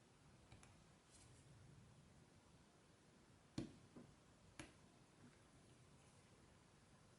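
Near silence with a few small sharp clicks of hand tools against the phone, the loudest about three and a half seconds in and two lighter ones just after.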